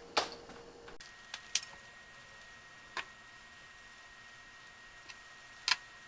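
Scattered small clicks and taps of hands working a network patch cable and its plastic connector end on a bench, a few seconds apart, the loudest near the end.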